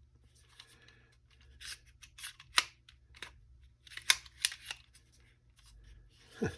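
Packaging and small accessory parts being handled: short rustles and several sharp clicks, the loudest about two and a half and four seconds in, then a dull thump near the end.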